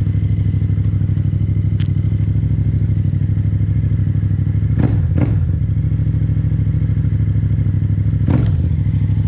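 Yamaha MT-07's 689 cc parallel-twin engine idling steadily through a full titanium Akrapovic exhaust with the dB killer removed, giving a full, open pipe sound. The revs are blipped briefly about five seconds in and again about eight seconds in.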